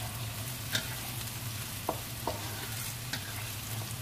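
Tempeh pieces sizzling in oil in a wok while being stir-fried with a spatula, which knocks and scrapes against the pan a few times, over a steady low hum.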